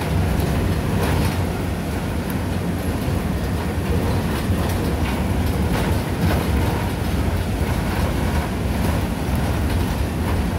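Steady rumble of a moving vehicle heard from inside the cabin, with scattered light rattles and clacks.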